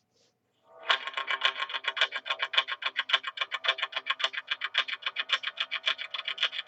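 Intro music starting about a second in: a fast, evenly pulsed guitar part with effects, several notes a second.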